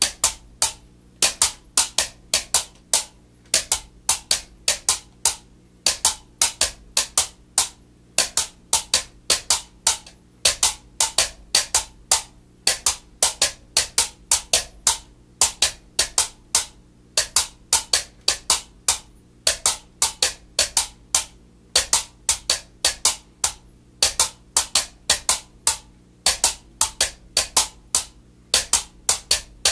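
Two homemade bamboo tubes, each with a low and a high note, struck against the knees in a steady repeating West African hand-percussion rhythm: sharp hollow clacks in short groups, about three a second.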